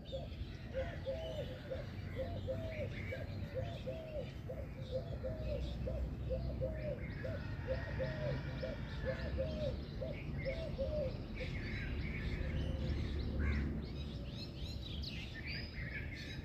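Birds chirping outdoors, with scattered high chirps throughout. A lower call repeats about twice a second and stops about two-thirds of the way through. A steady low rumble of background noise runs underneath.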